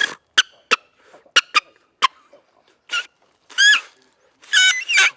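Turkey call being blown: a few short squeaky clucks, then three longer yelping squeals, rough and uneven, the notes of someone still learning the call.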